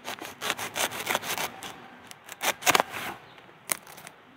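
Dry bamboo leaf litter and twigs crackling and rustling in short, irregular bursts as a hand reaches in and grips a young bamboo shoot to pick it.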